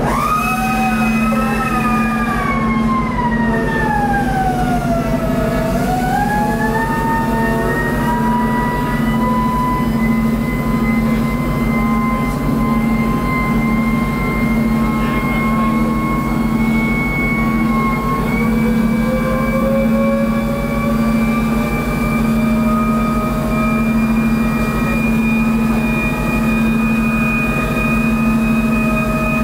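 Hydraulic deck machinery whining as the stern A-frame swings out and the EZ net is lowered. The whine jumps up at the start, falls over the first five seconds or so, then climbs slowly and settles to a steady pitch, over a constant low hum of ship machinery.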